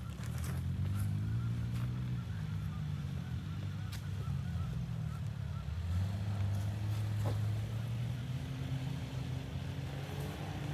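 Ford Maverick FX4's 2.0-litre turbocharged four-cylinder engine pulling the truck over off-road terrain, its pitch rising and falling with the throttle. A couple of short sharp knocks are heard.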